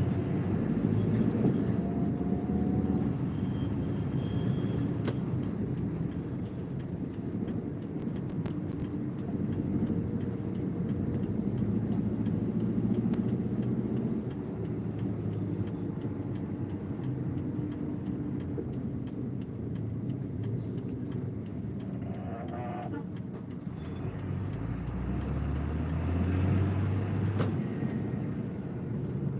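Road traffic in a slow-moving jam: engines running with a steady low rumble. A louder low rumble swells about 24 seconds in and fades a few seconds later.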